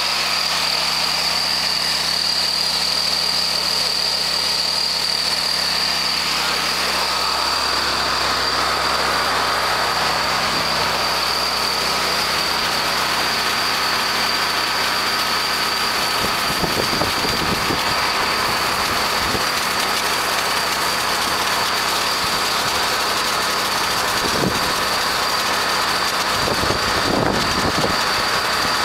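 Gasoline engine of a cart-mounted pressure washer running steadily, with a steady high whine. From about seven seconds in, the hiss of the spray gun jetting water and foam is added.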